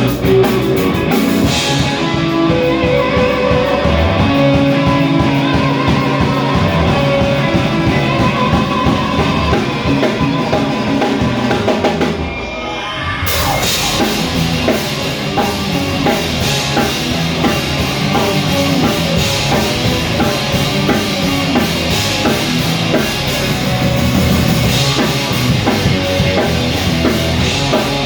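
Rock band playing live: drum kit, electric guitar and bass. About halfway through the band drops away for a moment, then comes back in full.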